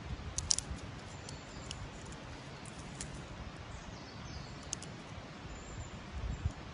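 Outdoor ambience: a steady low rumble and hiss with a few faint, sharp high ticks scattered through it, the strongest about half a second in.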